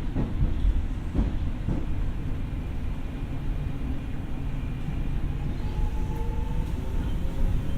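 Tokyo Metro 6000 series electric train running on the rails: a steady low rumble with a few rail-joint clicks in the first two seconds, and a faint whine coming in during the second half.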